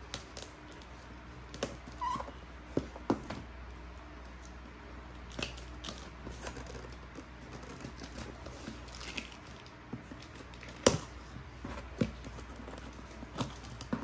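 Boxes and packaging being handled on a table: scattered light taps, knocks and rustles, with a sharper knock about eleven seconds in and another a second later.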